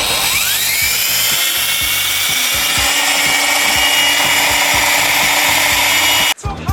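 Electric drywall sander starting up, its motor whine rising in pitch over the first second and then running steadily with a loud sanding hiss. It cuts off abruptly near the end.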